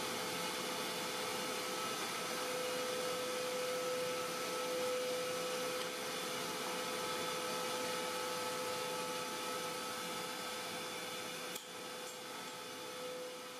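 Router mounted in a homemade router table running at speed with a steady whine, its bit spinning. A single sharp click near the end, after which it runs a little quieter.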